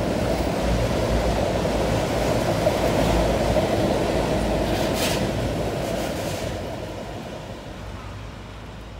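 Freight train of autorack cars rolling past close by, a steady rumble of steel wheels on rail, with a brief higher hiss about five seconds in. The sound fades from about six seconds in as the end of the train passes and draws away.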